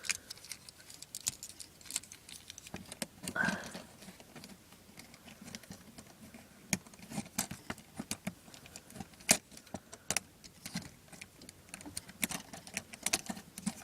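Plastic Transformers action figure being transformed by hand: a scatter of small, irregular plastic clicks and ticks as its joints, hinges and pegs are worked.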